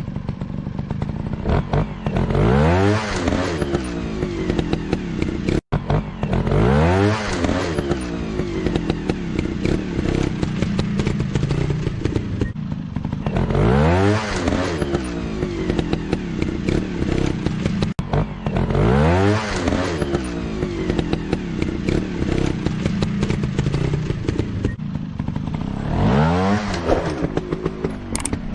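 Dirt bike engines revving up and easing off again and again, about five sharp rises in pitch, with some clattering over rough ground. The sound cuts out for an instant about six seconds in.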